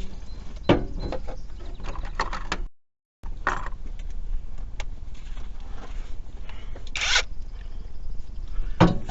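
Hand tools working on a Jeep 3.7 V6 engine during teardown: scattered clicks and knocks of wrench and sockets on engine parts, with a short rasping burst about seven seconds in.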